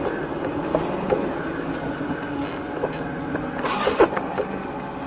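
Car cabin sound while driving slowly: steady engine and road noise, with a few light clicks and a brief louder rustle ending in a knock about four seconds in.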